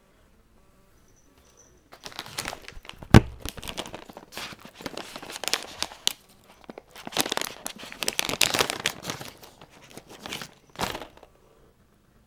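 Plastic cat-treat pouch crinkling and rustling as it is handled, with one sharp snap about three seconds in.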